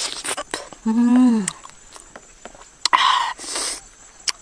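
Close-up eating sounds of a person chewing raw honeycomb: wet mouth clicks and smacks throughout. A short hummed "mmm" with a falling pitch comes about a second in, and a hissy slurp or suck about three seconds in.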